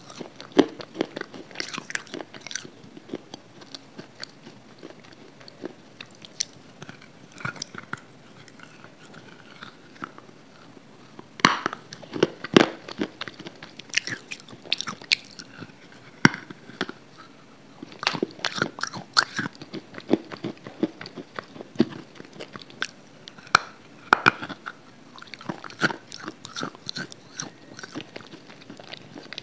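Close-miked biting and crunching of brittle grey slabs: clusters of sharp crackling snaps as pieces are bitten off, with quieter chewing between them. The loudest snap comes about twelve seconds in.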